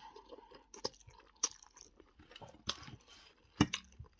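A person chewing a mouthful of spaghetti meal close to the microphone: wet mouth clicks and smacks at irregular intervals, four of them louder than the rest.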